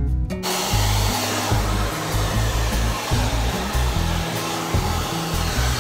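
Hair dryer blowing steadily, starting abruptly about half a second in, with background music and a bass beat underneath.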